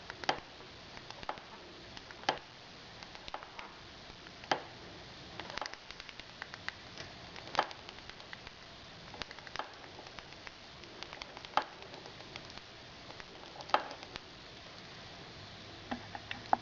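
Drive chain and freshly fitted sprockets of a 1976 Honda CB550F being rotated, giving a sharp pop about every two seconds with lighter ticks between. The popping seems to come at one specific spot in the chain's turn.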